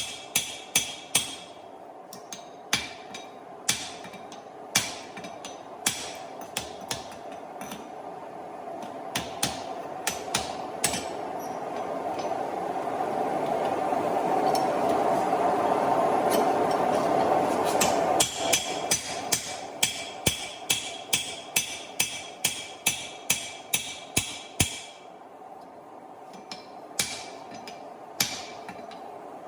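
Hand hammer striking a steel drift through the eye of a hot hammer head, about two sharp, ringing blows a second with short pauses. In the middle a steady rushing noise swells up while the blows thin out, then drops away and the blows resume.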